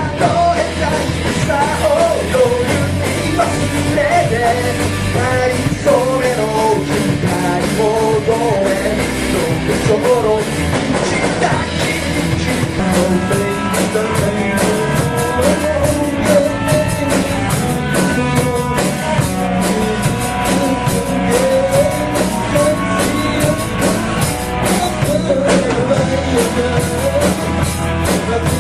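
A rock song performed by a band: a lead vocal sung over electric guitar, bass and a drum kit keeping a steady beat.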